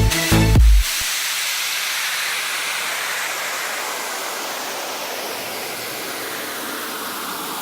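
A steady hiss of noise that slowly fades. Background electronic music cuts off abruptly about a second in and comes back near the end.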